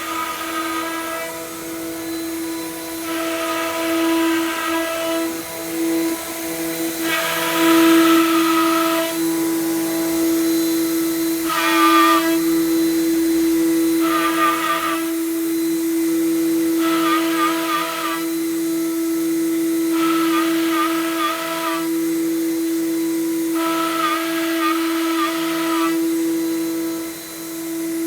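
Woodworking CNC router spindle running with a steady high whine, and every few seconds the bit cutting into wood for a second or two, adding a harsher rattling sound on top.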